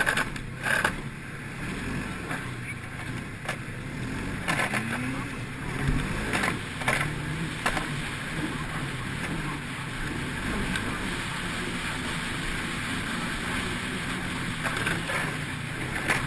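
Snowmobile engine running at trail speed, heard from the rider's seat, its pitch rising and falling as the throttle changes, with wind buffeting the microphone in several short gusts.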